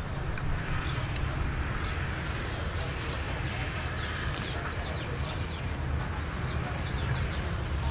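Small birds chirping over and over in short high chirps, over a low steady rumble.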